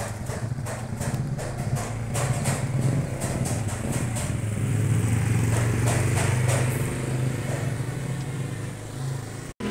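A motorcycle engine running steadily, growing louder over the first few seconds and easing off again after about seven seconds.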